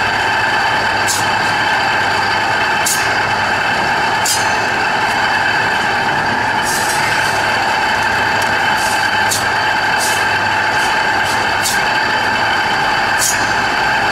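Hong Teng HST-300 meat slicing machine running: its motor and spinning disc blade give a steady, loud, high whine, with short sharp ticks every second or two at uneven intervals.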